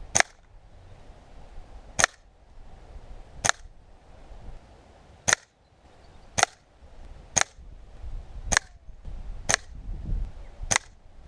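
Gamo Whisper Sting air rifle firing pellets: nine sharp shots, one every one to two seconds.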